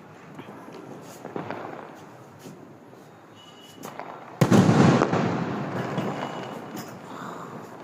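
Sky shot aerial firework: a few faint pops, then one loud bang about four and a half seconds in as a shell bursts, its rumble fading over about two seconds.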